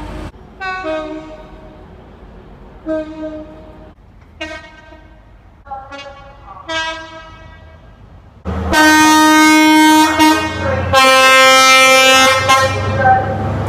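Train horn sounding: about five short, fainter toots, then a loud two-tone blast, a long high note followed by a lower note.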